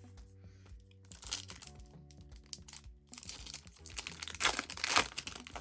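Foil trading-card pack wrapper crinkling and tearing as a pack is opened by hand, with short rustles about a second in and a louder stretch of crinkling near the end, over background music.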